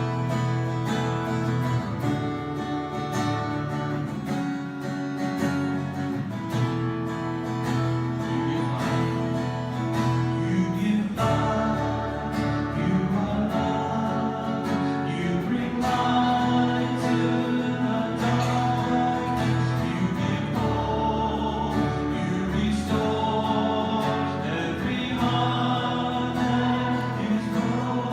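Worship song: a group of voices singing together over strummed acoustic guitar.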